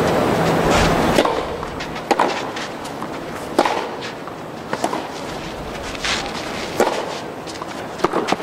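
Tennis ball struck by racquets in a baseline rally, a sharp pock roughly every second and a bit, over a steady background of court noise. A brief loud rush of noise fills the first second.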